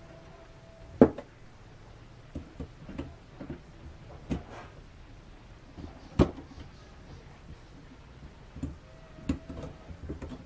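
Scattered clicks and knocks of hand tools and parts being handled while working on a coin box. The sharpest knock comes about a second in and another about six seconds in, with lighter clicks between.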